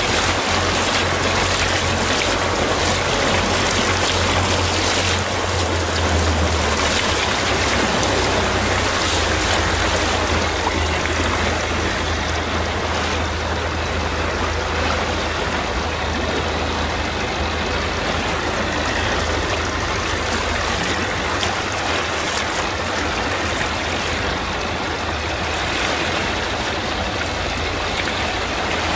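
Water rushing and splashing along the hull of a moving motorboat, over the steady low hum of its engine. The hiss of the spray grows softer about twelve seconds in.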